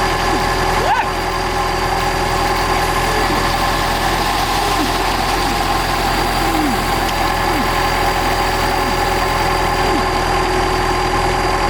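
A large excavator's engine running steadily at a constant idle. Short falling chirps come and go over it.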